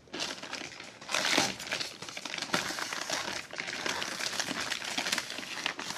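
Packaging being opened by hand: the wrapping crinkles and crackles with many small clicks, loudest about a second in.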